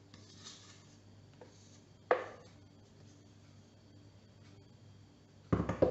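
Cake batter being smoothed in a springform pan with a spatula: faint scraping, a sharp knock about two seconds in, and a louder cluster of knocks near the end.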